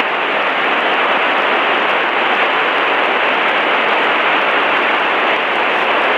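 Aviation radio static: a loud, even hiss in the headset that starts suddenly and cuts off suddenly about six seconds later. It fills the gap between repeats of an automated airport weather broadcast.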